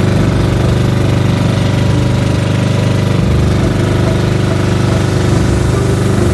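Inboard engine of a motorized outrigger fishing boat (bangka) running steadily, a loud, even, pulsing drone.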